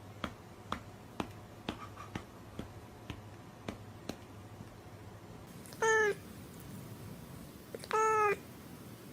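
A domestic cat meowing twice, two short meows about two seconds apart, each dipping slightly in pitch. Before them come faint ticking clicks, about two a second.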